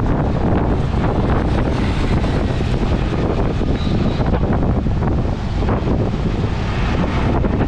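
Wind buffeting the microphone at the open side of a moving auto-rickshaw, mixed with its engine and road noise, loud and steady.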